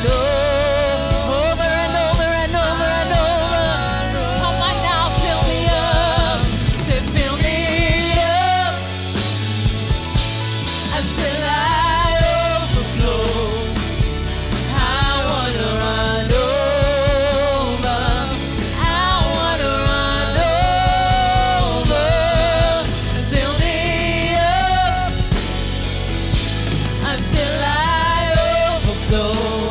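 Live church worship band playing a song, with a wavering sung melody over a drum kit and a steady low accompaniment; the bass and drums drop out for a moment about nine seconds in.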